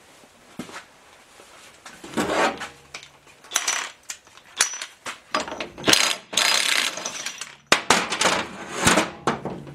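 DeWalt cordless impact gun run in several short bursts on the rear yoke nut of an SM465 transmission, spinning the thin nut off, with metal clinks of the socket and parts on the steel bench.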